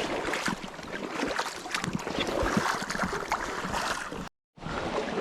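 River water splashing and sloshing irregularly around the legs of someone wading through a shallow river, with scattered knocks. The sound drops out completely for a moment near the end.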